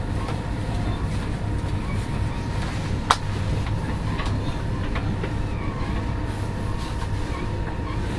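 Interior running sound of an X61 (Alstom Coradia Nordic) electric commuter train at speed: a steady low rumble of wheels and running gear with a thin steady traction-motor whine. A sharp click sounds about three seconds in.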